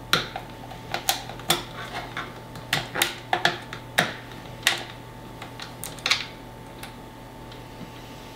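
Irregular sharp clicks and taps of a small metal screwdriver prying at the plastic housing of an Arcadyan KVD21 5G home internet gateway, about a dozen in the first six seconds, then only a few.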